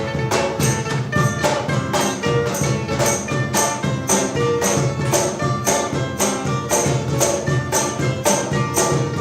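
Instrumental passage of a folk-style band song, with no singing: several pitched instruments over a steady beat, with high percussion strokes about twice a second.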